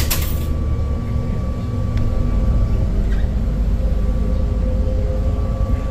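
Inside a city bus: the bus's low engine rumble with a faint steady whine. In the first half second comes a short clatter of coins dropping into the fare box's change tray.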